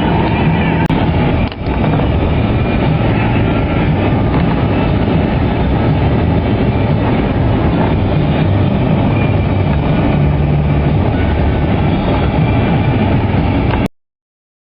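Loud, steady rumbling noise with a faint hum in it, cutting off suddenly near the end.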